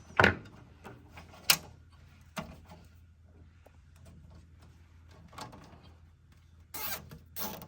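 A plastic cable tie being pulled tight through its ratchet head in two quick zipping rasps near the end, after a few sharp clicks from handling the tie and wiring.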